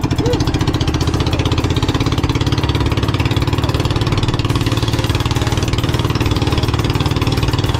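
Outrigger boat's engine running steadily at an even speed, with a fast, regular pulsing beat.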